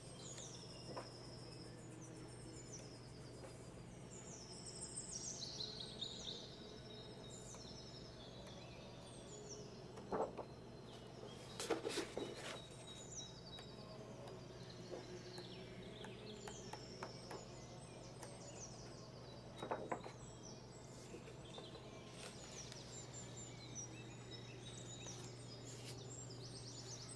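Pages of a large, heavy book being turned by hand, with soft rustles and flaps about ten, twelve and twenty seconds in. Birds chirp throughout in short, high, falling notes, over a faint steady low hum.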